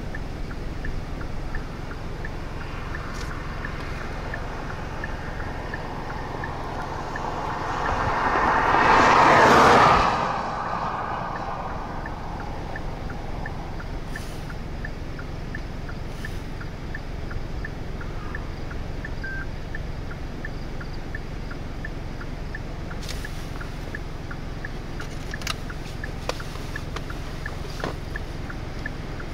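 Steady low outdoor rumble with faint, evenly spaced ticking, while a vehicle swells past about eight to ten seconds in, rising to a peak and then fading quickly.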